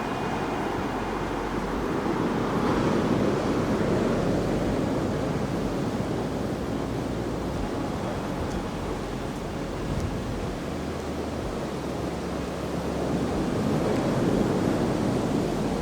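Ocean surf washing onto a sandy beach, a steady rush that swells twice, a couple of seconds in and again near the end, with some wind on the microphone.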